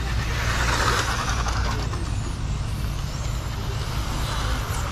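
Radio-controlled cars running laps on an asphalt track, their motors giving a faint whine that rises and falls over a steady low rumble.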